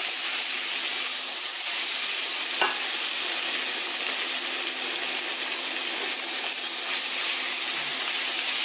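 Pork and vegetables sizzling in a frying pan, being stirred and tossed with a silicone spatula as the gochujang and chili-flake seasoning is mixed in. The frying hiss is steady, with a single light knock of the spatula about a third of the way in.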